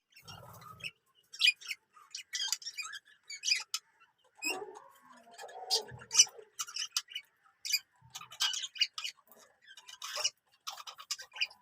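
Birds chirping in short, quick, irregular notes, with a lower, harsher call about five seconds in.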